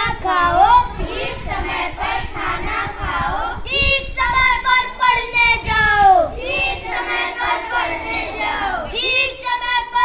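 A group of children singing a Hindi nursery rhyme, with long falling notes at the ends of lines.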